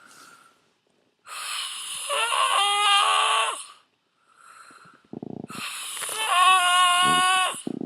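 A person snoring in sleep: two long, loud in-breaths, each with a high whistling, wheezy tone, with a soft breath out between them. The second in-breath opens with a low rattle.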